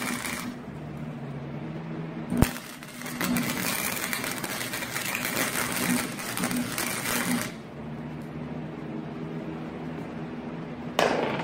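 Electric arc welding on the steel billet: a crackling arc hiss in two runs, a brief one at the start and a longer one of about four seconds in the middle, with a steady low hum between them. A sharp click about two and a half seconds in, and a short loud burst of noise near the end.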